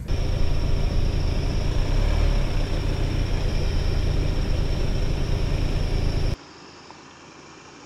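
Ford Bronco Sport Sasquatch SUV engine running with a low, steady rumble as it crawls over a dirt trail hump. It cuts off suddenly a little past six seconds in, leaving quiet background with a faint steady high-pitched hum.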